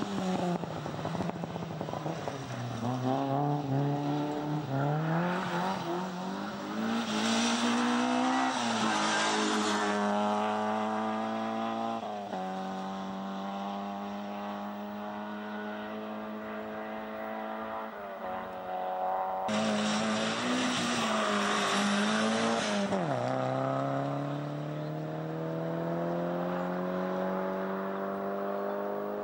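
Rally car engines on a gravel special stage, revving hard under acceleration: the pitch climbs steadily and drops sharply at each gear change. Twice there is a loud rush of tyres on gravel as a car passes close.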